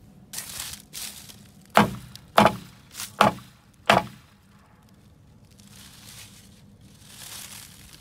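A hand tool striking the boards of a wooden fence, five sharp knocks in about two seconds.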